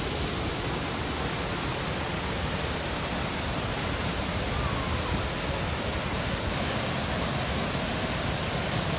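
Latourell Falls' waterfall rushing, a steady, unchanging roar of falling water.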